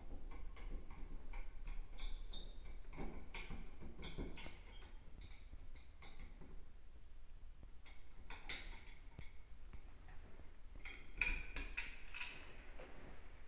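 Scattered light clicks, taps and scrapes of plastic parts being handled: a heat detector being worked on and turned on its ceiling mounting base. The clicks come in clusters, a couple of seconds in, about eight seconds in and again near the end.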